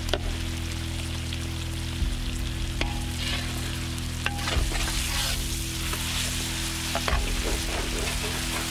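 Onions, tomatoes and greens sizzling in hot oil in a black iron kadai as a ladle stirs them. A few sharp knocks of the ladle against the pan come through the sizzle.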